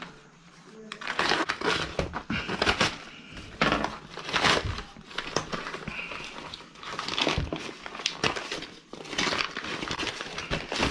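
Orange plastic courier mailer being torn open and crumpled by hand: irregular crinkling and rustling in bursts, loudest a few seconds in.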